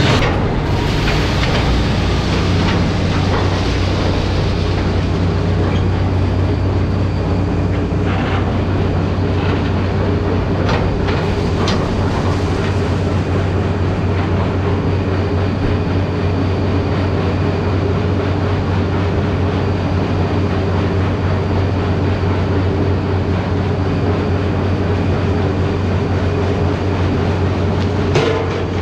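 Large machine running steadily with a loud low hum, and a few brief clicks partway through and near the end.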